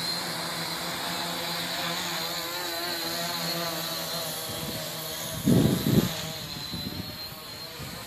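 Homebuilt tricopter's electric motors and propellers buzzing with a steady high whine as it lifts off and flies overhead, the pitch wavering as the throttle changes. About five and a half seconds in comes a short, loud rumble.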